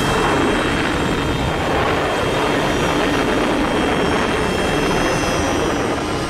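Sound effect of cartoon jet-thruster hover craft: a loud, steady rushing engine noise as the vehicles descend and land.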